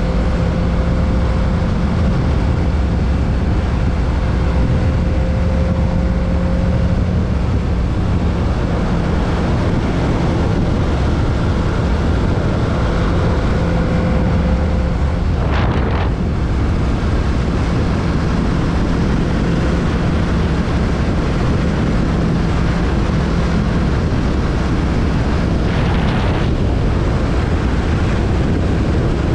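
Kawasaki Z650's parallel-twin engine running at a steady pitch while riding, under heavy wind rush on the microphone. Two brief rushes of noise cut through, about halfway through and again near the end.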